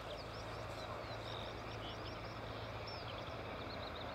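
Small birds chirping and twittering in quick short notes over a steady low hum, the distant North American SNJ-3 Texan's radial engine running as the plane rolls along the runway.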